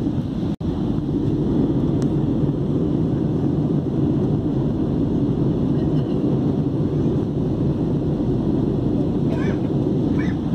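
Airliner cabin noise in flight: the steady low rumble of the engines and rushing air heard from inside the passenger cabin. It cuts out for an instant about half a second in.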